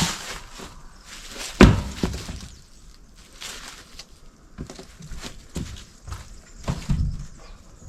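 Heavy wooden thuds and knocks from a large old wooden barrel being tipped and shifted, with one loud thud about a second and a half in and a cluster of knocks near the end.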